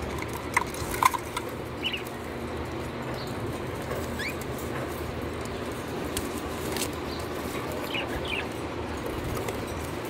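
Small caged pet parrots giving a few short, scattered chirps over a steady background hiss. The loudest chirps come about a second in, and a rising chirp comes near the middle.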